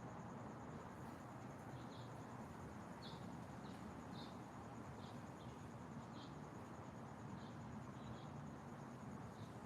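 Faint natural ambience: short high bird chirps scattered about once a second over a steady, high, fast-pulsing insect trill, with a low steady hiss underneath.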